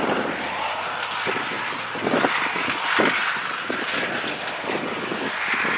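A mega mud truck's engine running hard as the truck drives over snowy mounds: a steady engine drone with a few short pops mixed in.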